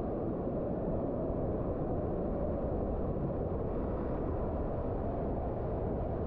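Hot-spring waterfall pouring into the cave, a steady deep rush of water heard from inside the cave.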